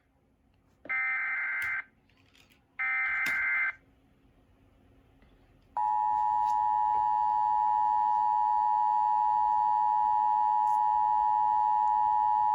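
Emergency Alert System alert tones: the last two of three SAME header data bursts, each about a second long, then after a gap of about two seconds the steady two-tone EAS attention signal begins and holds. The header and tone open a National Weather Service special marine warning.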